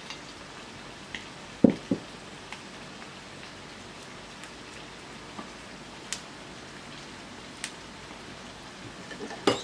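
Steady hiss of chicken frying in hot oil, with a few soft knocks and taps as fresh red chillies are snapped by hand and dropped into a food-chopper bowl. The two loudest knocks come just under two seconds in.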